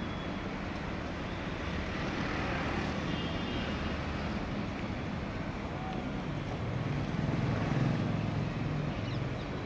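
Outdoor road traffic noise: a steady rumble of vehicle engines that swells to its loudest about three-quarters of the way through, then eases.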